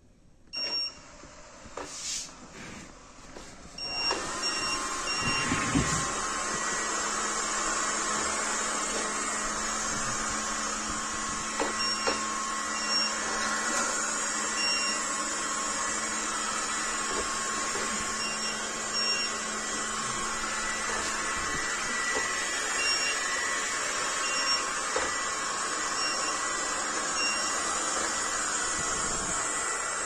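WAP W300 robot vacuum cleaner: a short electronic beep as the remote button is pressed. From about four seconds in its suction motor and brushes run with a steady whirring hum as it drives over tile floor. Brief beeps come now and then throughout.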